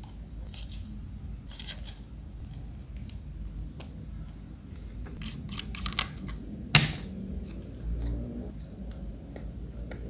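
Light plastic clicks and taps from hands handling a small plastic handheld spray fan and a plastic dropper bottle, with two sharper clicks near six and seven seconds in.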